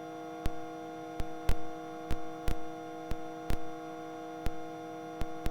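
Steady electrical hum of several tones on a helicopter's intercom audio feed between spoken transmissions, broken by sharp irregular clicks about once a second.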